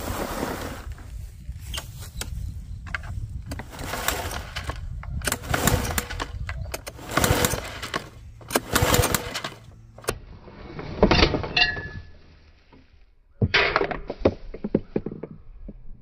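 Gasoline walk-behind lawn mower engine running, heard as a low rumble under loud, uneven surges of noise. The sound drops almost away for about a second near the three-quarter mark, then comes back.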